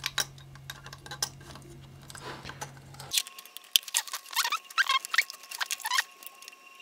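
Hands fitting a metal heat sink and spring clip onto a circuit board: scattered clicks. About three seconds in the sound changes abruptly, and short squeaks and taps follow as the board is handled and worked on.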